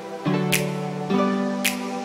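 Background music: a mellow plucked-string melody over a light, even beat, about one hit a second.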